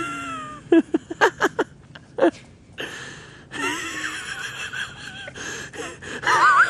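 A dog whining in wavering pitched calls, broken by a quick run of short yelps about a second in.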